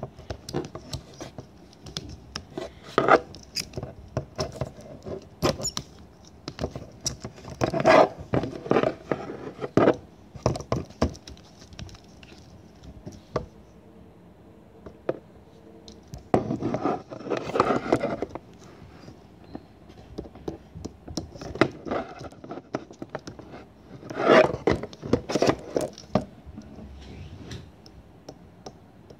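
Plastic segments of a Rubik's snake clicking and scraping as they are twisted by hand, in irregular bunches of clicks separated by quieter stretches.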